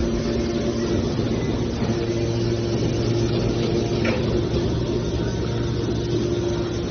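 Hydraulic scrap metal baler running with a steady hum and mechanical noise, with a single short knock about four seconds in.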